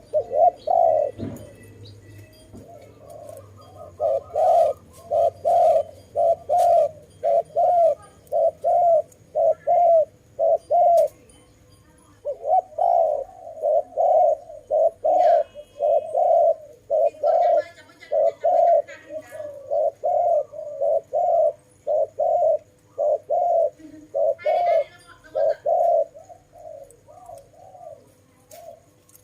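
A dove cooing in a long series of short, repeated coos, about two a second, with a brief break about halfway. Faint chirps of other small birds are heard in between.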